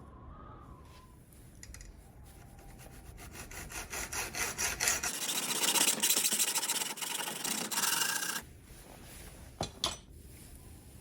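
8 mm steel tubing being cut by hand: rapid rasping, rubbing strokes that build up over a few seconds and stop suddenly near the end, followed by a couple of light clicks.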